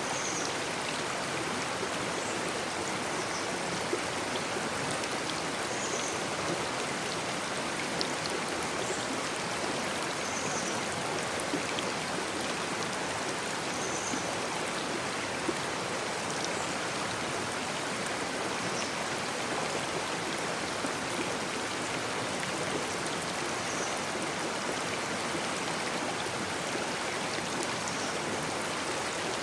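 Babbling brook: shallow water running steadily over stones, an even splashing rush with a few brief ticks of droplets.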